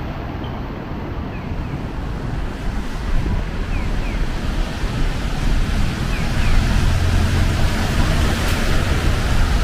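Steady hiss of rain and traffic on a wet city street, swelling about six seconds in with a louder low rumble and more hiss.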